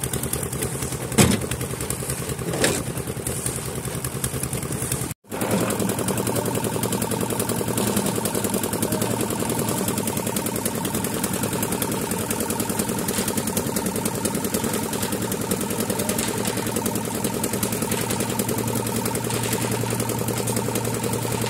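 Engine-driven concrete drum mixer running steadily while its drum is tipped to pour out mixed concrete. Two sharp clanks in the first few seconds, and a momentary break in the sound about five seconds in.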